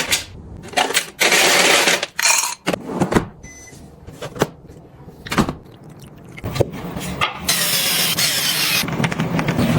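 Kitchen handling sounds: sharp clicks and knocks of containers and lids, with short rustles of packaging about a second in. About three-quarters of the way in, a steady rushing noise with a low hum starts and keeps going.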